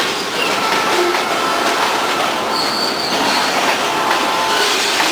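Train rolling along with a steady rush of wheel noise, its wheels squealing against the rails in short high-pitched squeals, one strongest a little past halfway.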